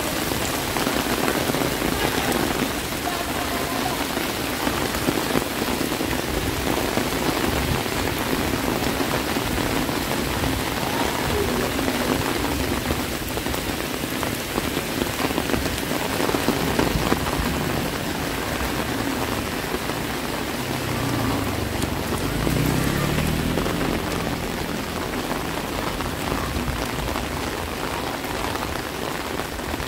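Heavy rain falling steadily, a dense even hiss of water.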